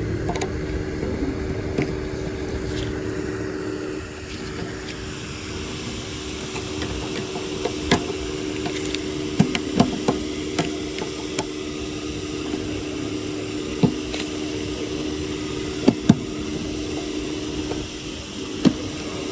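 A steady mechanical hum with scattered sharp clicks and knocks.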